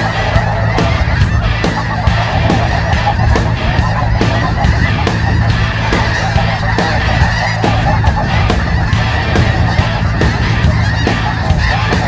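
A large flock of snow geese calling overhead: a dense, unbroken clamour of many overlapping honks.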